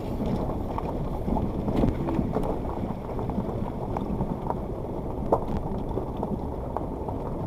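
Suzuki Jimny driving slowly over a loose gravel and stone riverbed track, heard from inside the cabin: a steady low rumble of tyres and drivetrain, with scattered small clicks of stones under the wheels.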